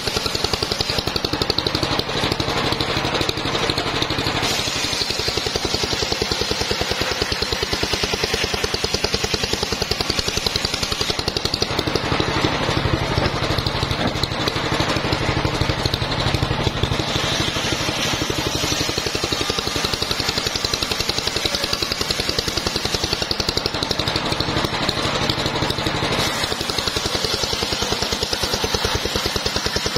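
Homemade engine-driven table circular saw ripping a teak log into boards: the engine runs steadily while the spinning blade cuts through the wood with a rasping whine that swells and eases several times as the log is pushed through.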